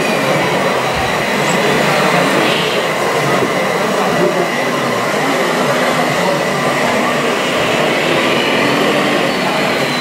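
Radio-controlled model trucks running: a steady mechanical whir of electric drive motors and gearboxes, with a thin high whine that rises in pitch near the end.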